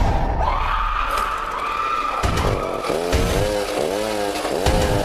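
Chainsaw engine revving hard, held at high revs for a few seconds, then blipped up and down several times near the end.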